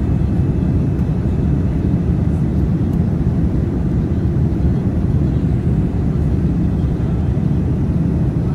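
Steady low rumble of a Boeing 787-9 in descent on approach, heard inside the cabin from a seat over the wing: Rolls-Royce Trent 1000 turbofans and airflow.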